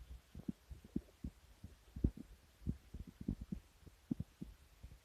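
Irregular low thumps and rumbles on the microphone, several a second and unevenly spaced, with the loudest about two seconds in.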